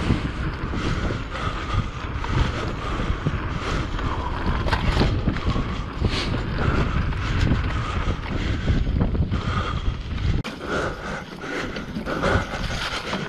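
Wind buffeting the microphone on a mountain bike riding fast along sandy singletrack, with tyre noise and frequent clicks and knocks from the bike over bumps. The low rumble of the wind drops away suddenly about ten seconds in.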